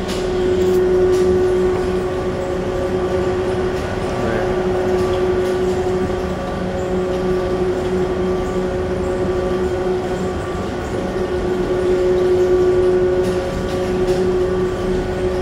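Cabin noise of an airport people-mover train running between stations: a steady motor whine over a constant rumble of rolling noise, swelling slightly about a second in and again near the end.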